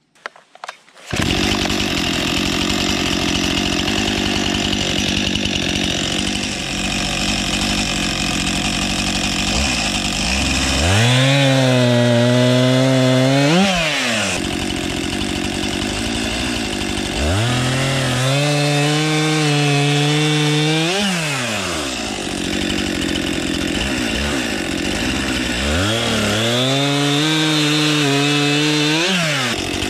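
Stihl chainsaw running at high revs, then bogging down into three cuts through a log, each about four seconds long, its engine pitch dropping and holding steady while cutting and climbing again between cuts. The saw comes in suddenly about a second in, after a few light footstep-like clicks.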